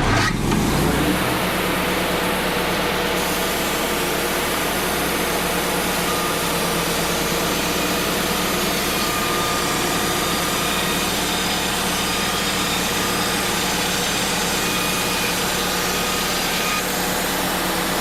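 Wood-Mizer LT35 band sawmill running steadily, its engine driving the band blade through air-dried white pine boards to edge them down into 1x4s.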